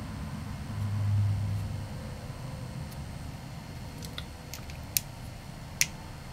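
A few small sharp clicks as a small Phillips screwdriver works the tiny screws out of a plastic RC differential housing, the two loudest in the second half. A brief low hum about a second in is the loudest sound.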